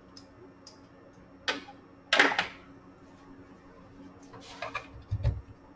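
Several knocks and clatters of small objects being handled, the loudest about two seconds in and another cluster with a dull thump near the end, over a faint steady hum.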